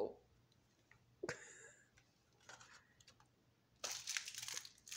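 Quiet scratchy rustle about four seconds in, with a couple of brief faint sounds before it.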